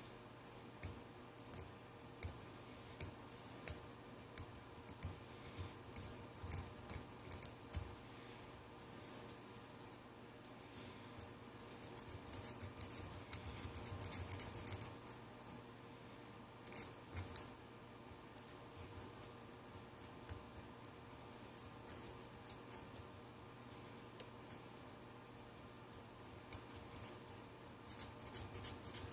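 Small hand tool scraping and clicking against a phone's plastic frame at irregular intervals, with a denser run of scraping about halfway through: old adhesive being cleaned off the frame.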